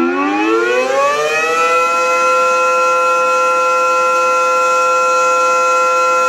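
Electromechanical air raid siren sounding during a test: its pitch climbs from a low point over the first two seconds, then holds a steady, loud wail.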